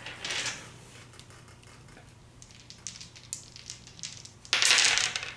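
Game dice rattled and rolled onto a table, a short clattering burst about four and a half seconds in, the loudest thing here; faint clicks of game pieces being handled come before it.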